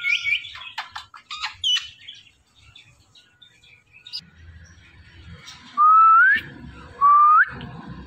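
Indian ringneck parrots chattering with short chirps and squeaks, then two loud rising whistles about a second apart near the end.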